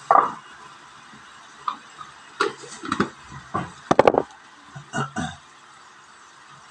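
Metal cooking-pot lid being set and handled on a wok, a series of clinks and knocks with the loudest cluster about four seconds in.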